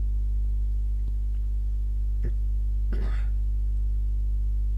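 Steady low electrical hum with a stack of even overtones in the recording. A few faint clicks and a short breath-like noise sound briefly about three seconds in.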